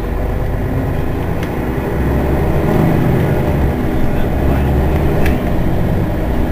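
Mercedes-Benz Citaro city bus's rear-mounted diesel engine idling steadily while the bus stands at a stop, growing a little louder about two seconds in. A few faint short clicks sound over it.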